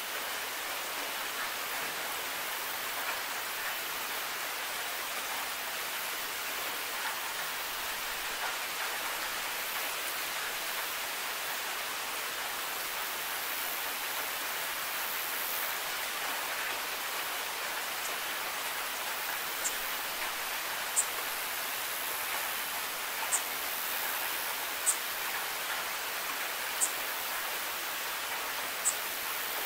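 Steady, even rain. From about two-thirds of the way in, sharp high ticks like drips sound every second or two.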